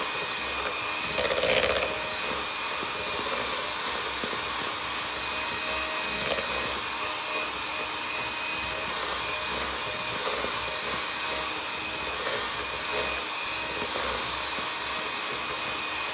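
Electric hand mixer running steadily with a motor whine, its beaters creaming cream cheese and butter; briefly louder about a second and a half in.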